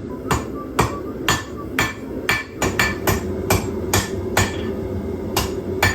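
Hand-hammer blows on hot twist-Damascus steel cut-offs being forged flat, about two strikes a second, some with a short metallic ring, with a pause near the end over a steady background hum.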